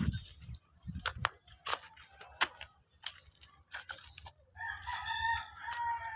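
A rooster crowing, one long drawn-out crow starting a little after halfway, preceded by a few scattered short clicks and knocks.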